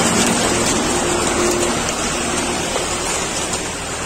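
Steady rushing of flowing water, an even hiss with no rhythm.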